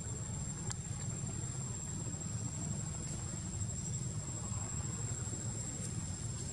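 A steady, high-pitched insect drone over a low rumble.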